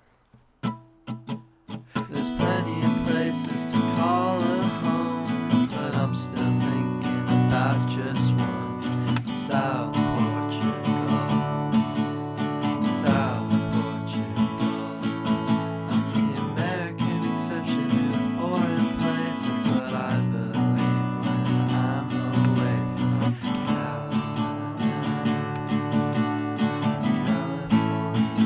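Acoustic guitar music: a few single plucked notes, then steady strummed chords from about two seconds in.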